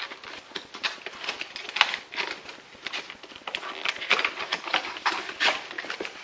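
Packaging being handled as the pole saw parts are unpacked from their box: an irregular run of rustles, crinkles and light knocks.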